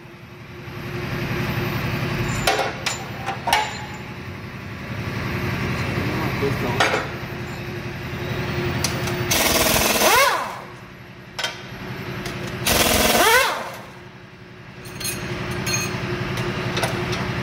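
Pneumatic impact wrench hammering on a truck engine's connecting-rod cap bolts in several runs, loosening them, with two louder bursts where the air motor spins up in a rising whine.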